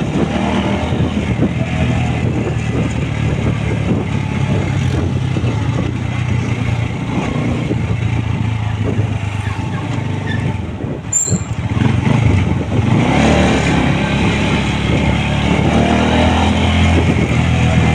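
A vehicle engine running steadily on the move, heard on board with road and wind noise. It dips briefly near the middle, then grows louder from about twelve seconds in.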